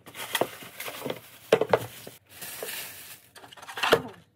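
Unpacking a plastic toothbrush holder from a cardboard box: irregular light knocks and clicks of hard plastic parts and the box, with a stretch of rustling packaging in the middle and a sharper knock near the end.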